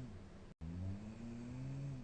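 A young woman snoring in her sleep with a blocked nose: a low, droning snore with a tone that rises slowly in pitch, which the uploader likens to a pig. The sound cuts out for an instant about half a second in.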